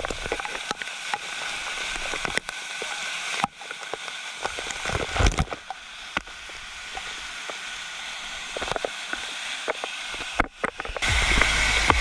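Waterfall cascading over rock close to the microphone: a steady rushing hiss with many small splashing clicks and crackles. Music starts about a second before the end.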